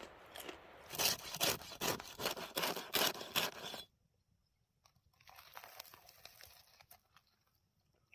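Crisp food crunching and tearing: a quick run of sharp crunches for about three seconds that stops abruptly, then faint scrapes and taps.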